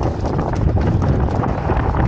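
Wind buffeting the microphone with a heavy low rumble, with a quick run of irregular knocks and slaps on top.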